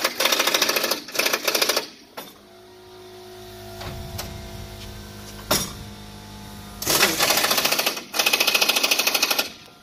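Impact wrench hammering bumper-to-frame mounting bolts tight through an 18 mm impact socket. It comes in rapid rattling bursts of about a second each: two at the start, then two more from about seven seconds in.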